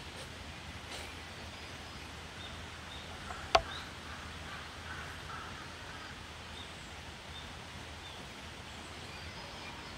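Quiet outdoor ambience with faint, short bird chirps now and then, and a single sharp click about three and a half seconds in.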